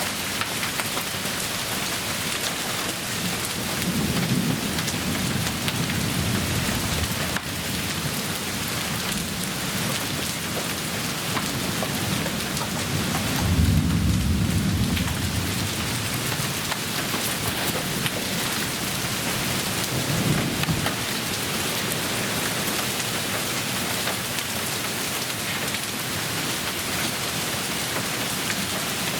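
Heavy rain pouring down steadily during a thunderstorm, with thunder rumbling three times. The loudest rumble comes about halfway through.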